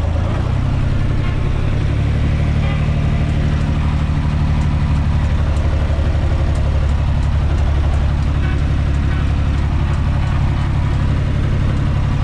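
UTB 445 4x4 tractor's diesel engine running steadily as the tractor drives along, heard from inside the cab.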